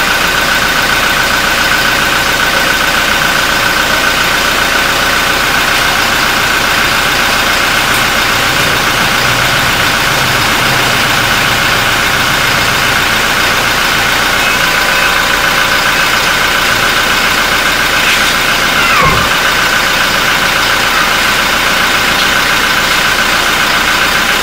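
Toyota Fortuner engine idling steadily, with one brief thump late on.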